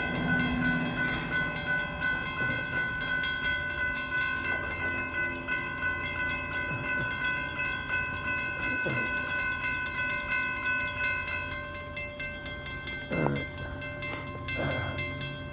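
Florida East Coast freight train at a grade crossing, with the crossing signal bells ringing steadily over the rumble of the train. A few short falling sweeps come in near the end.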